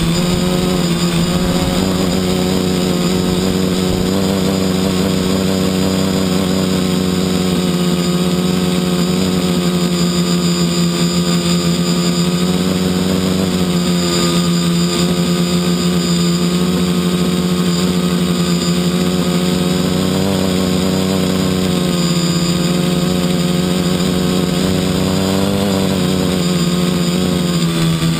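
Quadcopter's electric motors and propellers running, heard from the GoPro mounted on the airframe: a loud, steady buzzing hum whose pitch rises and falls a little with the throttle.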